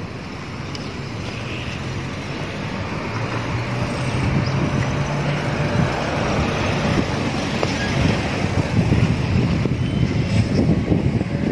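Car engine humming steadily as a car moves slowly past close by, over the noise of street traffic. Wind buffets the microphone in gusts near the end.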